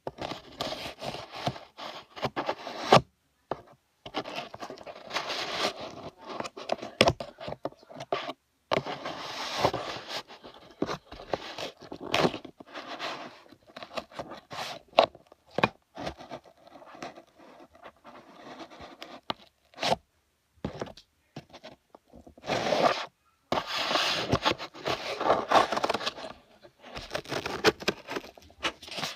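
Scraping and rustling in irregular bursts, broken by short silent gaps, with a few sharp clicks.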